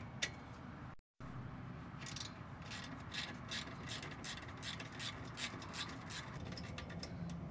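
Ratchet wrench clicking in quick, uneven strokes as it backs out an 8mm bolt on the exhaust valve actuator bracket, with the sound briefly cutting out about a second in.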